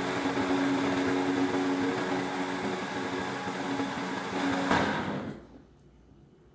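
Countertop blender running steadily, puréeing a marinade of Asian pear and onion until smooth. It is switched off about five seconds in and the motor winds down.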